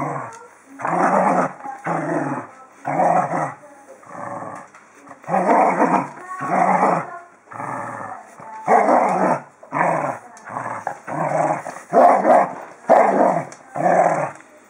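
Dog growling in short repeated bouts, roughly one a second, while it tugs and shakes a rope toy in play tug-of-war.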